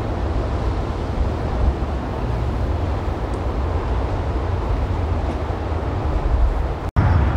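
Steady low rumble of a motorboat's outboard engines running at speed through the inlet, mixed with water noise and wind on the microphone. The sound drops out for an instant near the end.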